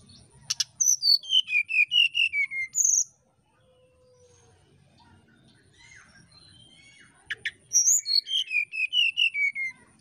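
Brown-chested jungle flycatcher singing two flute-like phrases, each a sharp note followed by a quick run of clear whistled notes falling in pitch; the second phrase comes about seven seconds in.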